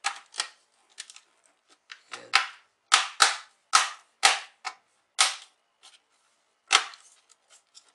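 Snap clips of an HP Pavilion 15 laptop's bottom cover clicking into place one after another as the cover is pressed shut along its edge: about a dozen sharp clicks at irregular spacing, the loudest in the middle.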